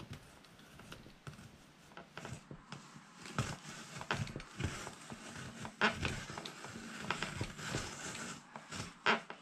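Hand-cranked apple peeler-corer-slicer being turned, its blade scraping the peel off an apple as the threaded shaft advances, with irregular clicks from the mechanism; louder sharp clicks come about six and nine seconds in.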